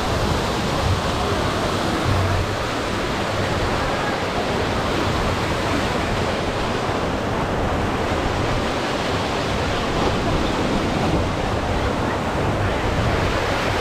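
Steady rush of water pouring from a waterslide outflow and an artificial rock waterfall into a splash pool.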